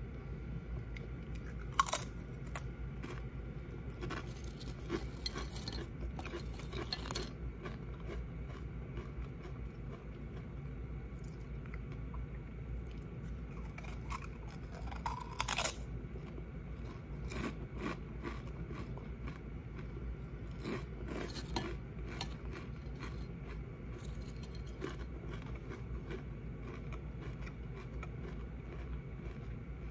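Close-up crunching and chewing of seasoned tortilla chips, in irregular clusters of crisp crunches with quieter chewing between. The sharpest crunches come a little under 2 s in and around 15 s in.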